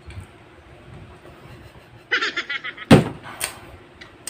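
People drinking water from glass mugs. About two seconds in there is a short run of rapid crackly sound, and just under three seconds in a single sharp knock, the loudest sound, like a glass mug being set down on the table.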